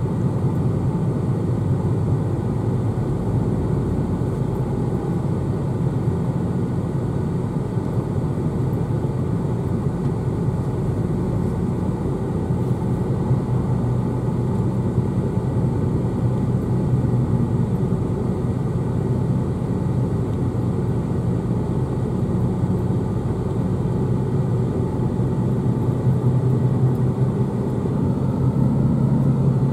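Steady cabin noise of a moving car: tyre rumble and engine hum heard from inside, growing slightly louder near the end.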